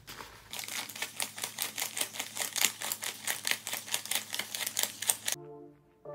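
US paper banknotes flicked and peeled off one by one as they are counted by hand: a rapid run of crisp paper snaps. About five seconds in it stops suddenly and brass-led background music begins.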